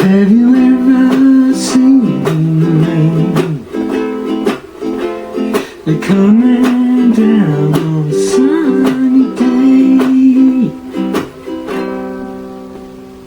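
Ukulele strummed in a steady rhythm, with a voice humming the melody over it; a final chord rings out and fades near the end.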